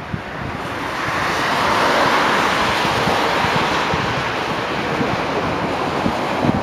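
Tyres of passing traffic hissing on a rain-wet road, a rushing hiss that swells over the first couple of seconds and then holds.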